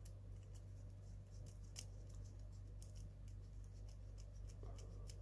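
A small screwdriver turns a long screw to fit a mass damper at the rear of a Mini 4WD car. It makes faint, irregular clicks and scratches over a steady low hum.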